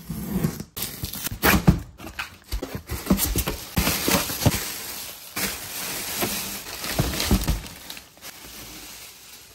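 Packing tape peeled off a cardboard box, then plastic air-cushion packing crinkling and rustling as hands pull it out of the box, with irregular crackles and knocks against the cardboard.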